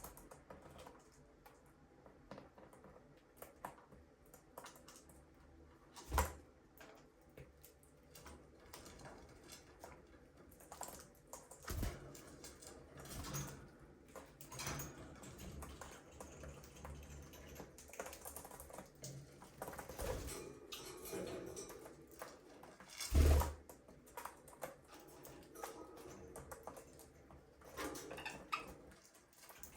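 Budgies moving about their cage: scattered small taps and clicks, with a louder knock about six seconds in and another about twenty-three seconds in.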